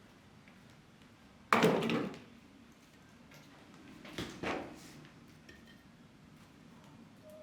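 A sharp, loud knock about a second and a half in that dies away quickly, then a softer knock about four seconds in.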